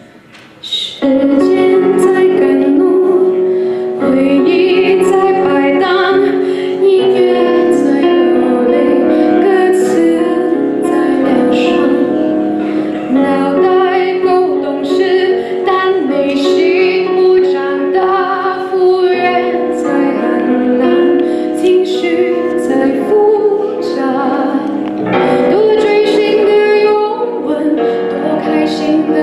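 A woman singing a Mandarin pop song into a handheld microphone over musical accompaniment; after a quiet first second the voice and music come in loud and carry on without a break.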